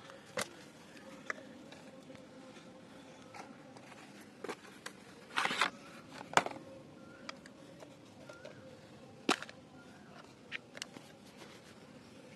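Plastic pesticide bottles, caps and a foil packet being handled: scattered sharp clicks and a short crinkle, the loudest click a little over six seconds in.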